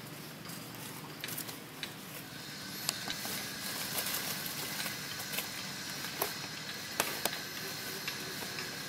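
Outdoor background ambience: a steady hiss that fills out about two seconds in, with scattered faint clicks and crackles, as from dry leaves being moved, and a brief high chirp.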